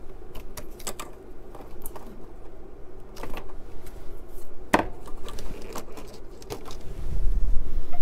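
Scattered clicks, taps and knocks of hands handling computer hardware, an IDE CD-ROM drive and its ribbon cable, with one louder knock about five seconds in. Near the end a low rumble of handling noise as the camera is moved.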